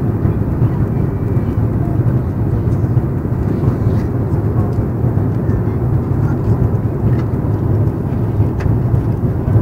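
Steady low rumble of an Airbus A330 airliner heard from inside the cabin, from its engines and the air rushing past.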